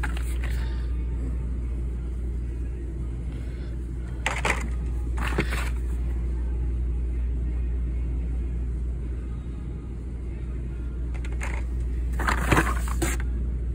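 A steady low rumble, with a few short rustles and scrapes of cardboard and plastic blister-card packaging being handled: twice around four to five seconds in, and a louder cluster near the end.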